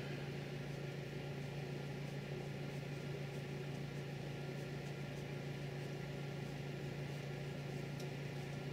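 Steady low hum with a faint even hiss: room tone. The hand-turned drill bit in the aluminium makes no distinct sound.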